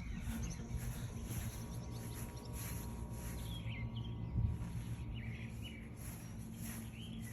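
Outdoor ambience with a few scattered short bird chirps over a steady low hum.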